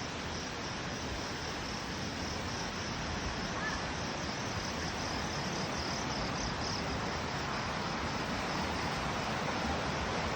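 River water rushing steadily over rocks. A faint high-pitched trilling sits over it for the first several seconds.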